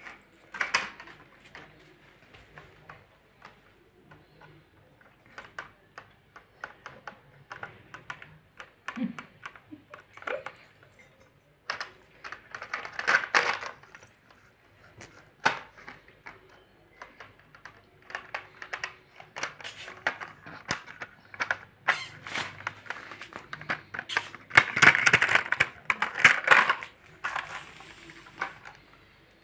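Toys handled by a toddler, knocking and clattering in irregular clicks, with a louder flurry near the middle and another near the end.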